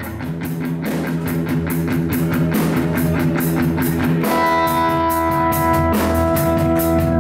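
Live rock band of electric guitar, bass guitar and drum kit playing, with the drums keeping a steady cymbal beat. The guitar is a Stratocaster-style electric, and about four seconds in it holds a sustained chord.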